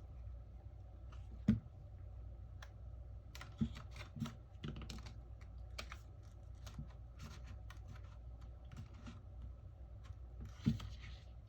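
Small repair tools clicking and tapping against a smartphone's cracked back glass and frame as the glass is pried off, in an irregular patter of light clicks with three louder knocks, about a second and a half in, about three and a half seconds in, and near the end, over a steady low hum.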